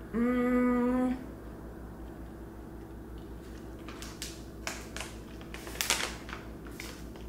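A woman's drawn-out, steady 'hmm' for about a second while she tastes a chocolate-covered caramel, then the crinkling and rustling of a plastic stand-up snack pouch being handled.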